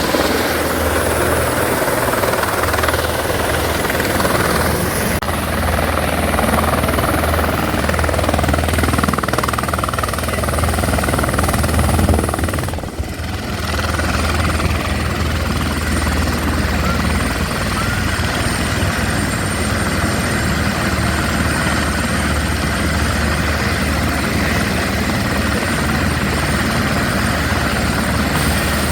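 Helicopter running steadily at close range: continuous engine and rotor noise with a steady low hum underneath, dipping briefly about 13 seconds in.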